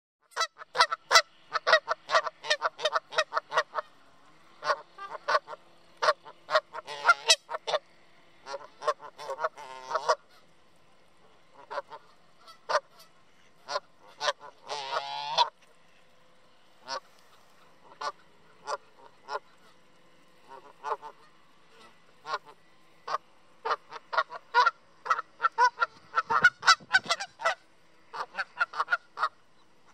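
Canada geese honking in quick runs of short calls, dense at the start and again over the last several seconds, sparser in between, with a longer drawn-out call about halfway through.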